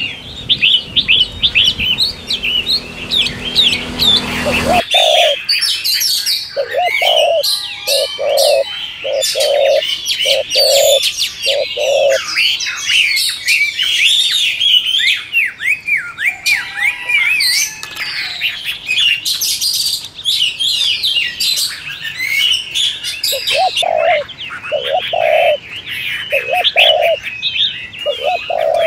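A chorus of small birds chirping and twittering, with a dove cooing in repeated low phrases from about five seconds in and again near the end. A low rumble under the birds cuts off suddenly about five seconds in.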